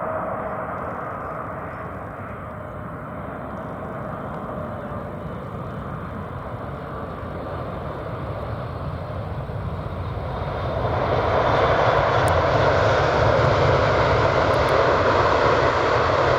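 Jet engines of a Boeing 747-8F freighter on its arrival, a steady roar that swells much louder about eleven seconds in.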